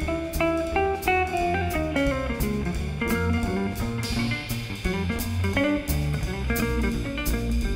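Jazz guitar solo on an archtop electric guitar, in clear single-note lines. Behind it a double bass plays low notes and drums keep time with regular cymbal strokes.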